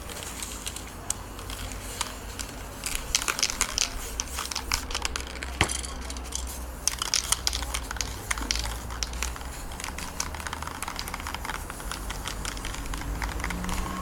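Paper crinkling and crackling as it is pressed onto and lifted off a freshly spray-painted sheet, in quick irregular clicks that come thickest in the middle, over a low steady rumble.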